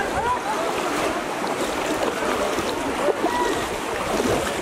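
Pond water sloshing and splashing steadily as many people wade through it and plunge bamboo polo fishing baskets into it, with a crowd of voices calling and chattering in the background.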